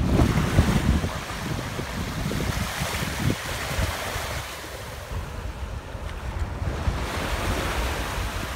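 Small waves breaking and washing up over sand in a steady, swelling hiss, with wind buffeting the microphone in a low rumble that is heaviest in the first second.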